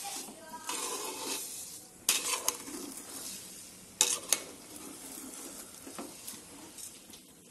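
Metal spatula stirring sugar into ghee-roasted cracked wheat in a metal pot, scraping gritty against the pot. Sharp clinks of the spatula on the pot about two seconds in and again at four seconds are the loudest sounds.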